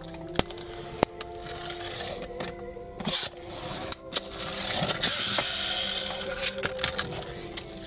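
Small diecast metal toy vans handled and rolled across a hard tabletop: sharp clicks as they are picked up and set down, a loud scrape about three seconds in, then a whirring rasp of wheels running over the surface.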